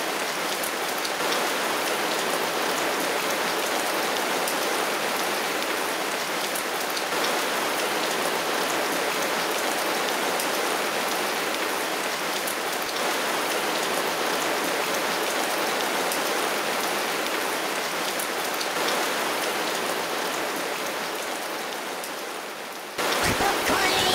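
Heavy rain falling steadily, a dense hiss with the patter of single drops. About a second before the end it cuts off abruptly and a louder sound with gliding pitches takes over.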